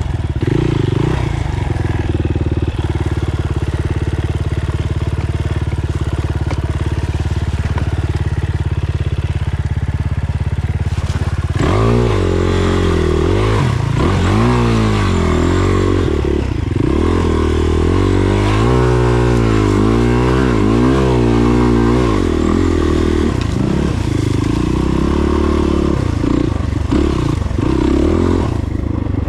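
Dirt bike engine running at a steady pitch. About halfway through, the revs start rising and falling over and over as the throttle is opened and closed.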